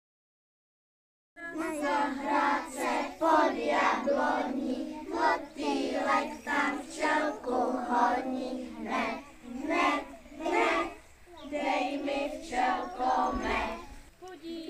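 Silence for about the first second and a half, then a group of young children singing together in unison, in short rhythmic phrases.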